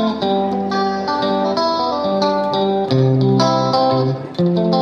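Instrumental background music: a plucked-string melody over a bass line, with the notes changing every fraction of a second.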